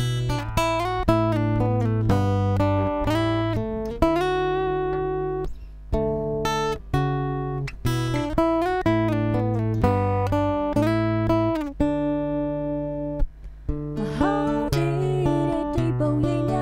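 Recorded guitar playback: picked and strummed chords ringing in a steady pattern, with a compressor on the guitar track evening out its level. A singing voice comes in near the end, also under compression.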